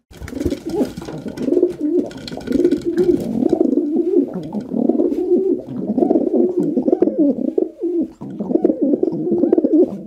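Rock doves (feral pigeons) cooing, low throaty coos overlapping without a break.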